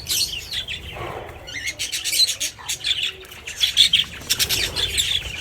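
A dense chorus of many birds calling at once, short squawks and chirps overlapping without a break.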